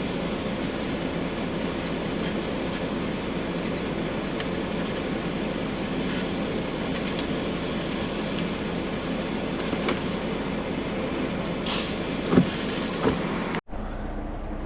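Semi truck heard from inside the cab while driving: steady engine drone and road noise. It cuts off suddenly near the end, giving way to a quieter background.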